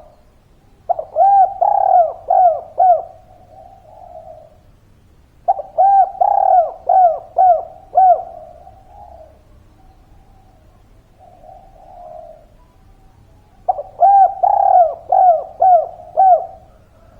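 Spotted dove (derkuku/tekukur) singing its cooing song. Three phrases, each a quick run of five or six rising-and-falling coos, with softer coos between them.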